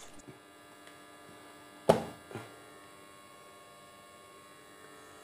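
A mixer-grinder jar being handled as its stuck lid, held fast by air trapped inside, is worked open: a sharp knock about two seconds in and a lighter one half a second later, over a faint steady electrical hum.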